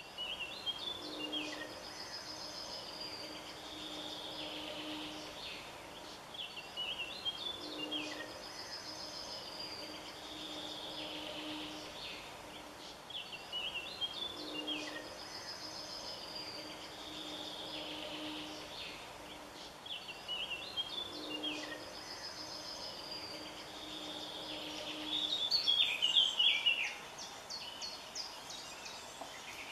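Birdsong: short chirps and a trilling call, repeating in the same pattern about every seven seconds over a low steady hum and background hiss. A louder flurry of chirps comes near the end.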